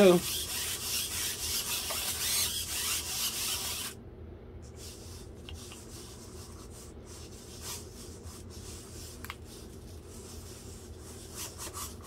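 Servo motors of a quadruped robot dog buzzing and whirring as it marches its legs in place on a stand, a dense rasping sound. About four seconds in it drops away sharply to a faint whir with scattered clicks.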